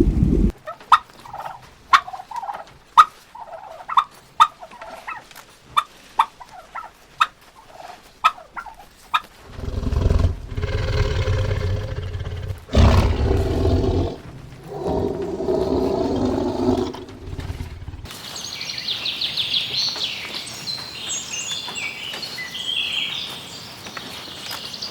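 A run of sharp, evenly repeated clicking calls, about two a second. Then two long pitched animal calls, loud and full, and finally high bird chirping.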